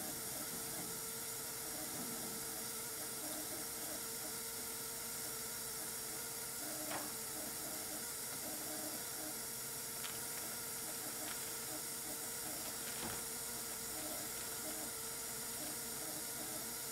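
Steady hiss of CO2 gas venting while a multi-layer sample bag is pressed empty to purge it, with a few faint clicks from handling the bag.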